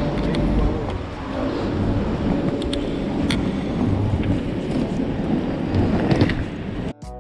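Busy city street ambience heard on foot: a steady rumble of traffic and wind on the microphone, with a few sharp clicks. Music cuts in abruptly right at the end.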